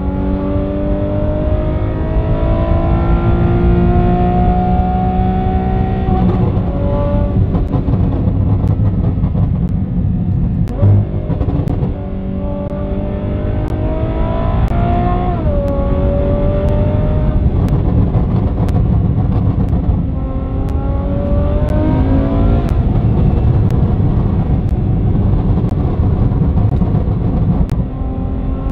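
Lamborghini V12 with a Gintani aftermarket exhaust accelerating hard through the gears: the engine note climbs steadily, then drops at each upshift, about four times.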